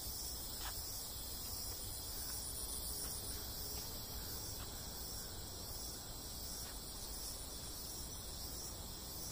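Steady, high-pitched chorus of insects in tropical forest, several overlapping shrill tones held without a break.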